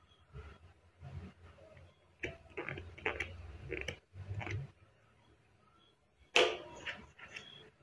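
Laminated PVC ID cards handled by hand over a paper cutter: light plastic rustles and clicks, with a sharper clack about six and a half seconds in.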